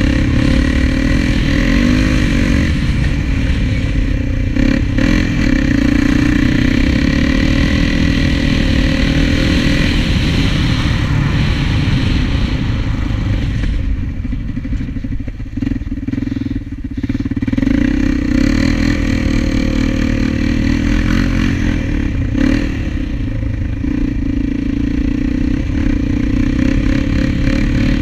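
Honda TRX400EX quad's single-cylinder four-stroke engine running under throttle while riding. It drops off for a few seconds about halfway through, then picks up again.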